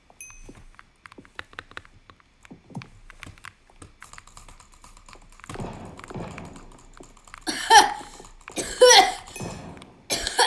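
A person coughing hard: three loud, violent coughs near the end, after a breathy stretch. Before that come a few seconds of light clicks and taps.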